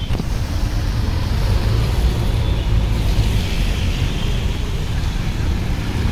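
Steady outdoor noise of heavy rain over a flooded street, under a low rumble of road traffic.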